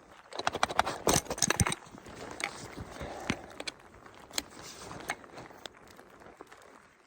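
Camping gear being handled: a quick run of rattling clicks in the first two seconds or so, then scattered clicks and rustling.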